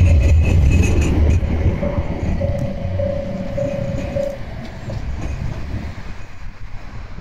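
Kumamoto City Tram Class 9700 low-floor tram running past on street track and moving away, its rumble loudest at first and fading. A steady whine is heard for a couple of seconds in the middle.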